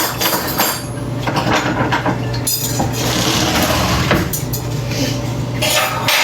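Kitchen utensils clinking and scraping against dishes, in scattered knocks with a brief rustling patch midway, over a steady low hum.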